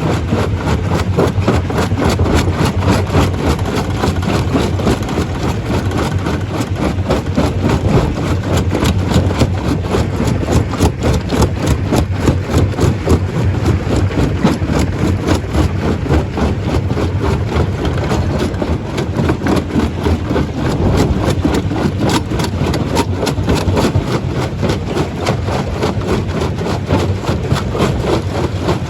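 Stone crusher running: a steady heavy engine drone under a continuous dense rattle and clatter of rock being crushed.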